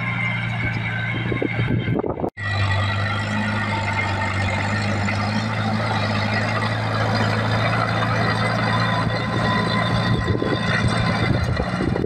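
Small Komatsu crawler bulldozer's diesel engine running steadily under load as the dozer pushes soil, with the sound dropping out for a moment about two seconds in.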